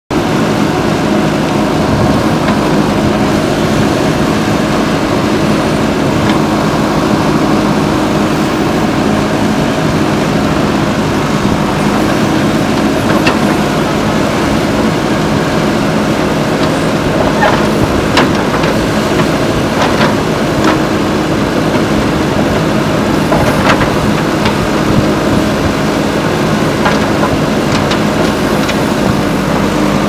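JCB 3DX backhoe loader's diesel engine running steadily under digging load, with a few short sharp clanks and knocks from the backhoe bucket and arm working the soil, mostly in the second half.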